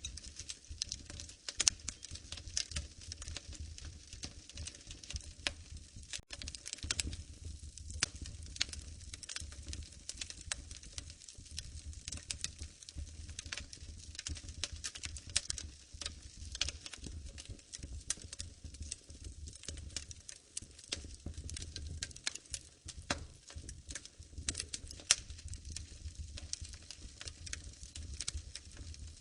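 Wood fire crackling in a fireplace: a steady, irregular run of small pops and snaps over a low rumble.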